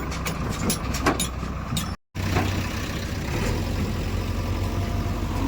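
Heavy diesel engine running steadily at a low speed, with several sharp knocks in the first two seconds. The sound cuts out for a moment about two seconds in, then the engine carries on.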